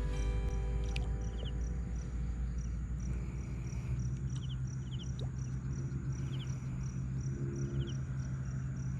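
Insects, cricket-like, chirping in a steady high pulse of about three a second, with a few short faint chirps and a steady low hum underneath.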